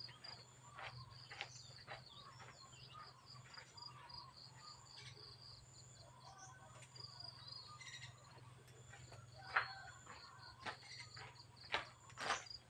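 Faint outdoor ambience: runs of short high chirps from insects and birds over a steady low hum, with a few scattered light knocks, a louder one near the end.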